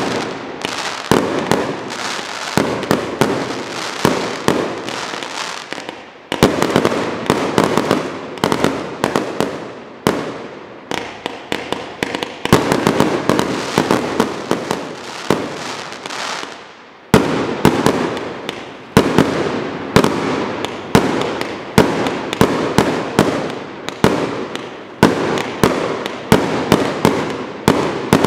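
XP4600 Snowstorm 25 mm compound firework cake firing its 139 shots: a rapid, continuous string of launch thumps and bursts, with short lulls a few times before the volleys pick up again.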